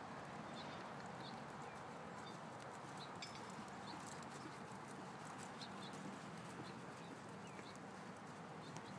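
A horse walking on the soft dirt of an arena, its hoofbeats faint, over a steady outdoor hush.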